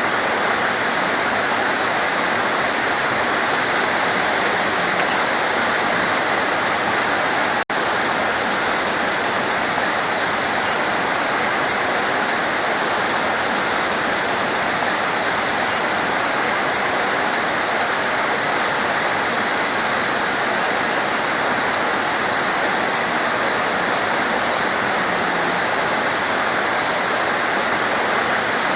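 Heavy rain pouring in a steady, dense hiss, cutting out for an instant about eight seconds in.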